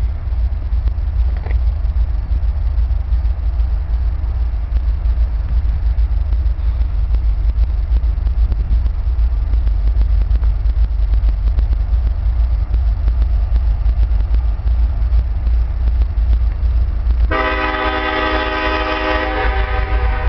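Steady low rumble, then about seventeen seconds in the air horn of an approaching Norfolk Southern GE ES44AC locomotive sounds a loud chord lasting about three seconds.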